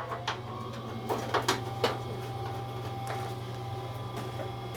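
Scattered light metallic clicks and taps as bolts, washers and the belt cover are fitted by hand on a snowblower, over a steady low hum.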